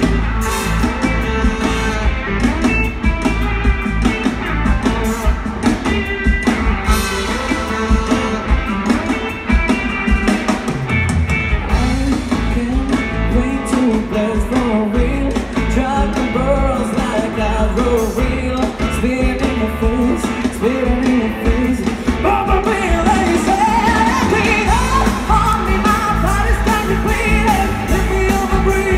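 Male singer singing with a live pop band of keyboard, drums and horns, amplified through the stage PA, with a heavy steady bass under the vocal line.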